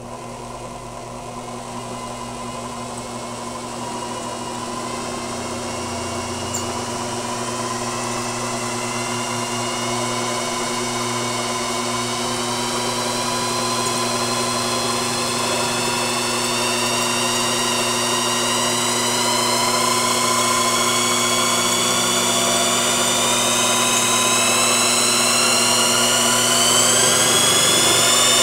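Brushed electric motor spinning up and driving a belt-driven homemade generator, its whine rising steadily in pitch and loudness as it gains speed and the generator's charging current into the battery climbs.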